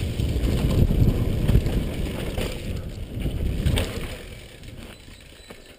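Wind buffeting a helmet-mounted camera while a downhill mountain bike runs fast over a dirt forest trail, with the rumble of the tyres and a few sharp knocks and rattles from the bike. The noise dies down over the last couple of seconds.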